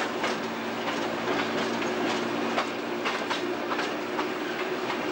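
Brill Model 75 railcar running along the track: a steady engine hum with the wheels clicking irregularly over rail joints.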